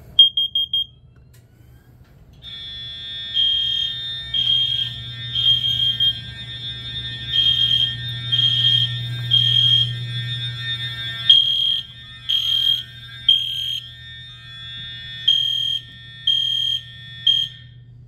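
A System Sensor carbon monoxide detector is set off with its test button and gives four quick beeps. About two seconds later the fire alarm panel's horns start sounding in the temporal three-pulse evacuation pattern: three beeps, a pause, then again, over a steady alarm tone.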